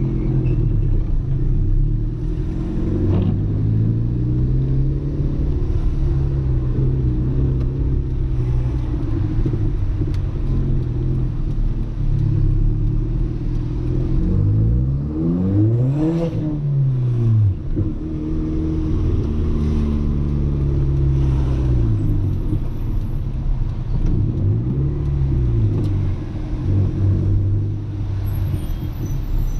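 Audi A3 1.8T's turbocharged four-cylinder engine heard from inside the moving car, its revs rising and falling several times with acceleration and gear changes, the sharpest climb and drop about halfway through. Low road and tyre rumble runs underneath, on a wet road with the window open.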